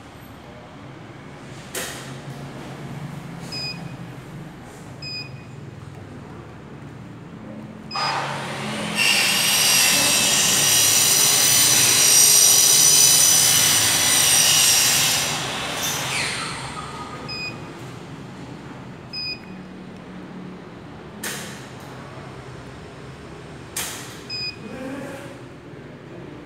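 Rotary monoblock bottle washing-filling-capping machine running with a low hum, short high beeps every few seconds and a few sharp clicks. About eight seconds in, a loud hiss starts, holds for about eight seconds and then fades.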